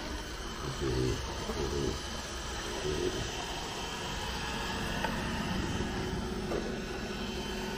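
Robot vacuum cleaner running on a tile floor: a steady whir of its suction fan and brushes.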